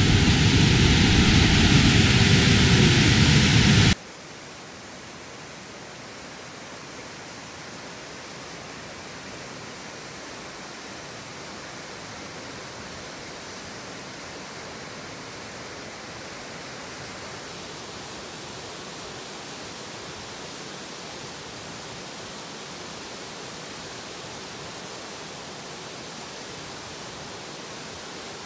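Steady rush of a mountain waterfall, loud and close for about four seconds, then dropping suddenly to a much quieter, even rush that holds for the rest of the time.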